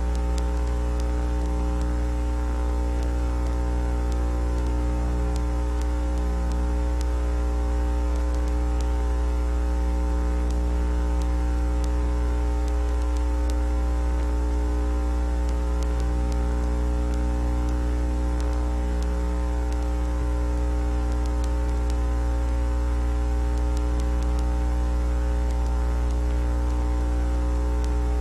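Steady electrical hum with a stack of buzzy overtones over a faint hiss, unchanging throughout.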